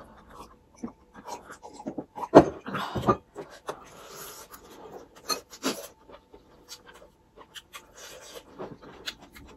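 Close-up eating sounds of two people having noodle soup and drinks: slurps, chewing and breaths, mixed with many short clicks of spoons and forks against glass bowls.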